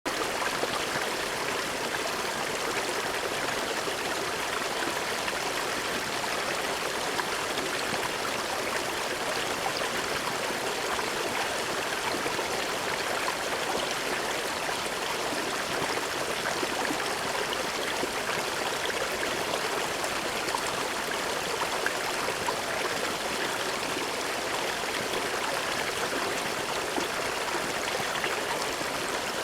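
Small brook running over rocks, a steady babbling and trickling of flowing water.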